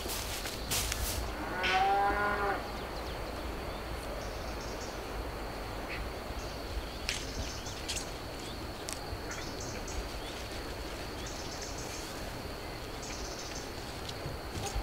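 A cow moos once, a single arching call lasting about a second, about two seconds in. After it comes a steady outdoor background with faint high chirps and a few light clicks.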